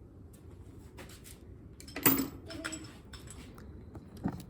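Small metal hand tools and sockets clinking as they are handled and sorted, with one sharp metal clank about two seconds in.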